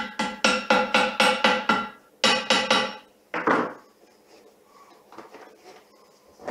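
Hammer tapping along the fresh weld on a welded aluminium part, sharp ringing metallic strikes about four a second. The strikes stop about two seconds in, a short second run follows, then one last knock near the middle.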